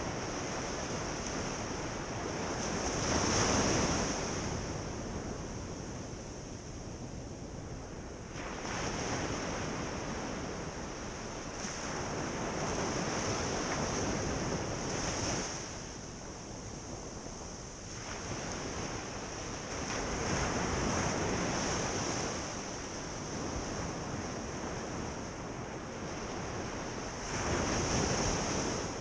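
Ocean waves breaking and washing up a beach, the surf swelling and easing about every five to eight seconds, over a steady high-pitched hiss.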